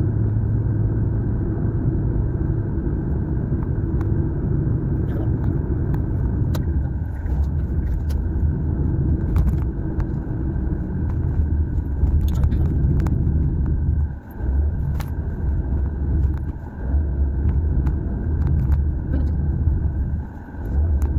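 Car cabin noise while driving: a steady low rumble of engine and tyres on the road, with a few faint clicks and ticks. It dips briefly twice, about fourteen seconds in and near the end.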